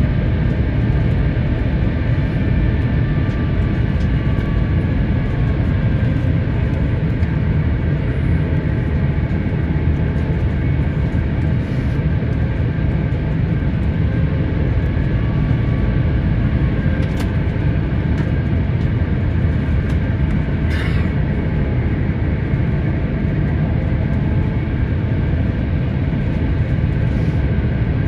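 Airliner cabin noise on approach: a steady, loud rumble of engines and airflow, with faint engine tones wavering slightly above it.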